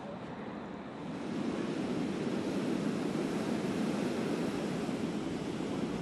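Heavy storm surf breaking and rushing up the beach in a steady wash of noise that swells louder about a second in, with wind buffeting the microphone.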